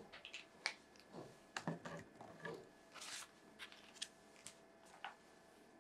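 Pages of a paperback picture book being handled and flipped, a soft paper rustle about three seconds in, with scattered light clicks and taps from handling the book and a marker.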